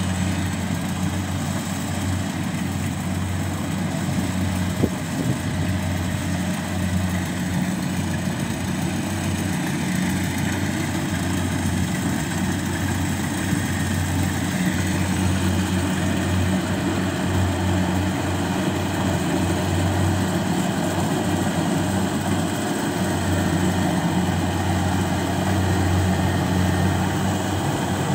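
Rice combine harvester running steadily while it harvests, a constant low engine drone with the hum of its threshing machinery.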